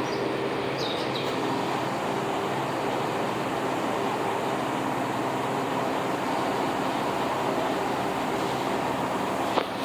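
Washington Metro train standing at the platform with a steady hum from its onboard equipment, and a sharp click near the end.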